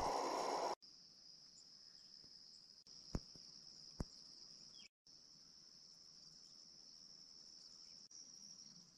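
Steady, faint, high-pitched trilling of crickets, with two faint clicks about a second apart near the middle. A louder noise cuts off just under a second in.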